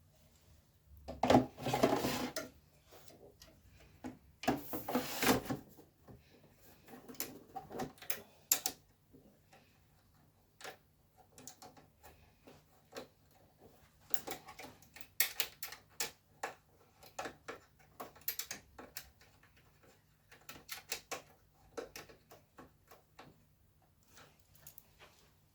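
Metal server hardware being handled, a hot-swap power supply module being worked into a storage server chassis: two short rattling scrapes, about a second in and again about four seconds in, then a long run of scattered clicks and light knocks.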